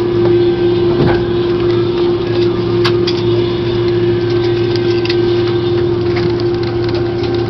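Jet airliner heard from inside the cabin while taxiing after landing: a steady engine and cabin hum with one constant tone, and a few light clicks or rattles.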